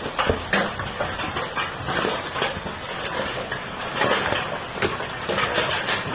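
Large hailstones pelting hard surfaces: a dense, irregular clatter of sharp impacts over a steady noisy roar.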